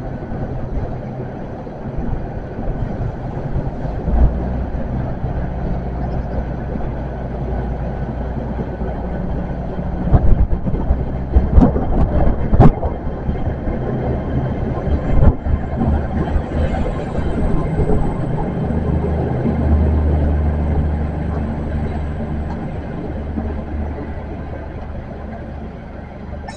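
GWR Hitachi Intercity Express Train's underfloor diesel engines running at the platform as a steady deep drone. The drone swells about twenty seconds in and then eases off. A few sharp clanks come between about ten and thirteen seconds in.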